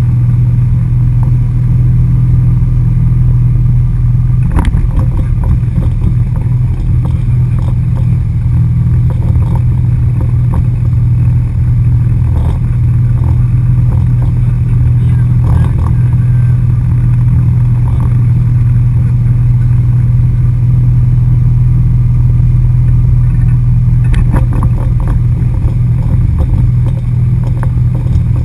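A wakeboard tow boat's engine running steadily at towing speed, a loud low drone, with rushing water and wind over it and a few short knocks.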